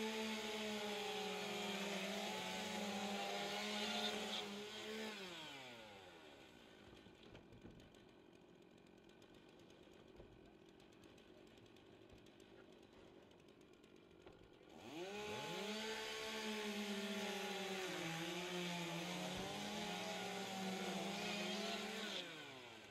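Gas chainsaw running at full throttle cutting through roof rafters and plywood decking, dropping to a low idle about five seconds in. It revs back up about fifteen seconds in and cuts again, with small dips in pitch under load, then drops back near the end.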